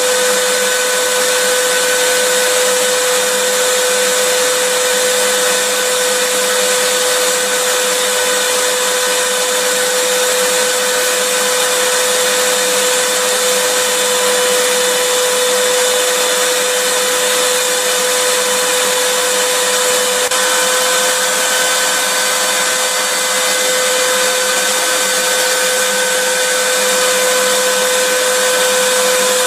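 Vacuum cleaner running steadily: a constant rushing hiss with a whine held on one note, unchanging throughout.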